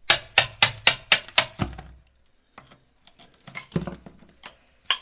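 Hammer blows chipping at old masonry, a quick run of about seven strikes at roughly four a second, then a pause and a few scattered knocks and scrapes near the end.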